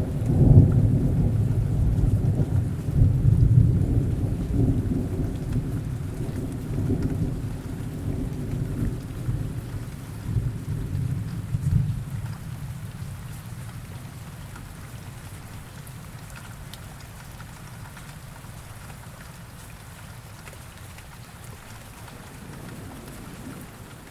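Steady rain falling with a long roll of thunder, loudest in the first few seconds and dying away about halfway through, leaving the rain alone.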